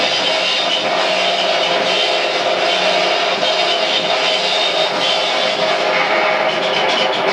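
A noise-rock band playing live: a loud, dense wall of heavily distorted amplified noise, steady and without a clear beat.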